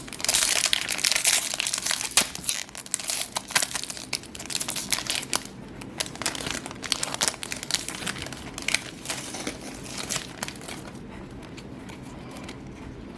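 Foil trading-card booster pack wrapper crinkling as it is handled and torn open, dense crackling for about five seconds, then scattered crinkles that fade away.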